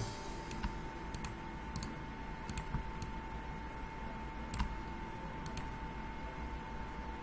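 Computer mouse clicking, about a dozen sharp clicks at irregular intervals, over a faint steady high-pitched whine.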